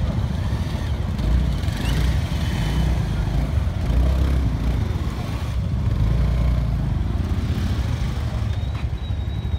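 Motorcycle engines running in a slow, crowded traffic jam on a dirt road: a steady low rumble.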